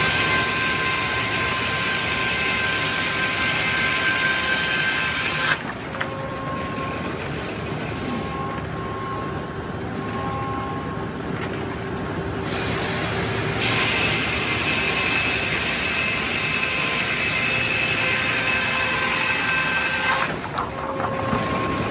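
Large circular sawmill head saw ripping through a poplar log: a cut with a steady high ring stops about five seconds in. The saw and carriage keep running with a duller sound until a second cut starts about fourteen seconds in and ends shortly before the end.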